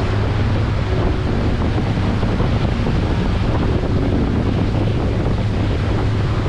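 Boat under way: a steady rush of wind on the microphone and moving water, over the steady low hum of the boat's motor.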